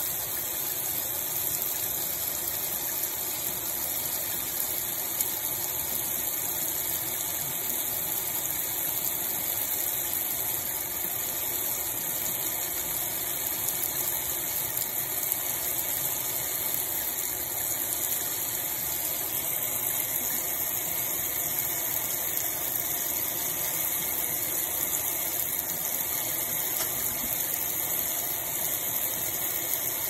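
Kitchen sink spray head running steadily, fine streams of water showering onto a parrot's feathers and into the sink with an even hiss.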